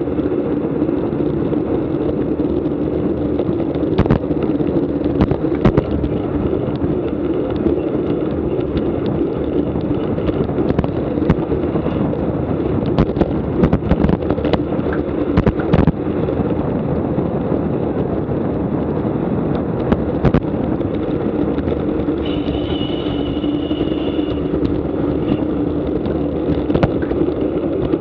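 Steady low motor drone, with scattered sharp knocks and clicks and a brief high tone held for about two seconds near the end.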